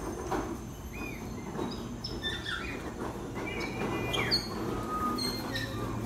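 Small birds chirping and whistling: many short, quick calls, some sliding up or down in pitch, over a steady low hum.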